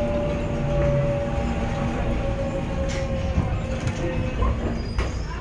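Seoul Subway Line 4 train running, heard from inside the passenger car: a steady low rumble with an electric whine that drifts slightly down in pitch. A short sharp click comes near the end.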